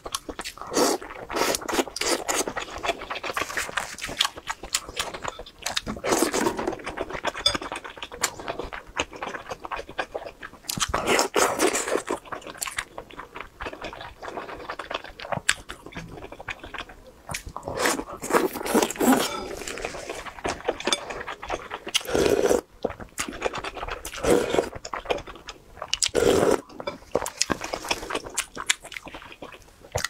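Close-miked eating: biting and chewing soft skewered fish cakes and fish balls, with many wet mouth clicks and smacks, louder in bunches every few seconds.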